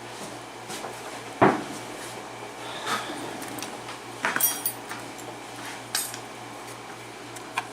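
Small metal parts of an Abus 72/40 padlock clicking and clinking as the lock is taken apart: a sharp knock about one and a half seconds in, then several light metallic clinks with a brief ring.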